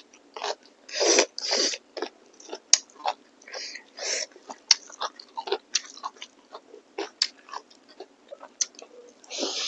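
Close-miked chewing and wet mouth smacks of someone eating, an irregular run of short clicks with a few louder smacks.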